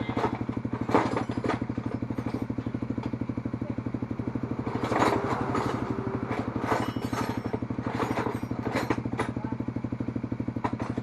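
Suzuki Raider 150 Fi's single-cylinder four-stroke engine idling steadily through an aftermarket Apipo exhaust, with a fast, even pulse and a few brief louder moments.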